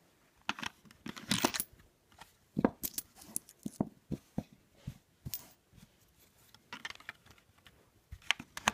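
A hand working a Lego Skittles dispenser: irregular plastic clicks and short rattles, busiest in the first five seconds, with a few more near the end.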